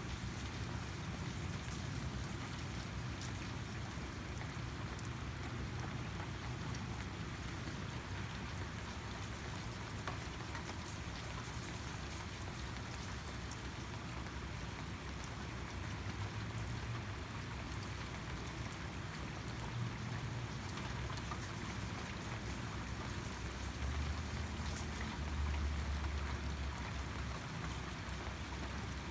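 Steady rain falling, with scattered drop ticks and a low rumble that swells for a few seconds near the end.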